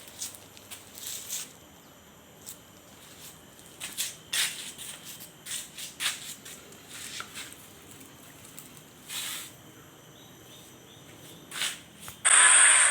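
Scattered short rustling and scraping handling noises, then near the end the DIY push mower's 30cc brush-cutter engine suddenly comes in running loud, its pitch wavering.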